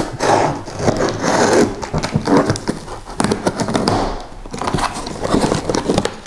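Knife blade slicing through packing tape on a cardboard box, with cardboard flaps scraping and crackling as they are pried open, in irregular scratchy strokes.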